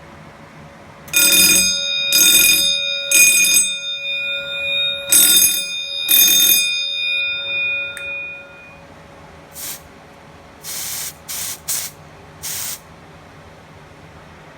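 Fire alarm notification appliances sounding in a temporal-three pattern during a walk test, set off by a magnet on a smoke detector. There are three strikes a second apart, a pause, then two more, each leaving a ringing tone. The pattern cuts off after about six seconds, and several short hissy bursts follow near the end.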